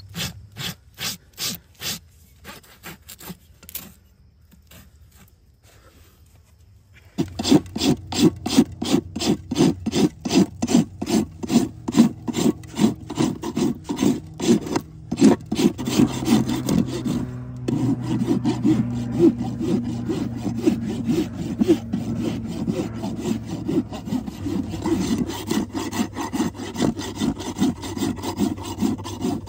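Farrier's hoof rasp filing a horse's hoof in steady back-and-forth strokes, about two to three a second. The strokes are light at first, ease off for a few seconds, then come back heavier and louder from about seven seconds in.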